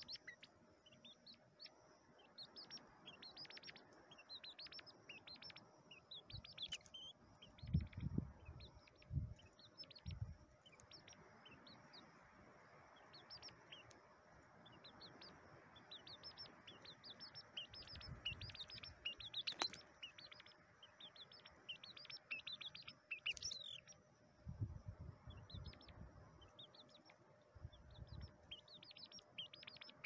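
Grey partridge calling: many short, high calls in quick runs, over a faint hiss. A few low thumps come about eight to ten seconds in and again later on.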